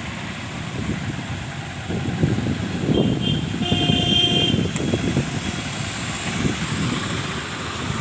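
Rumbling outdoor road noise of passing vehicles, getting louder about two seconds in, with a short horn toot just after the middle.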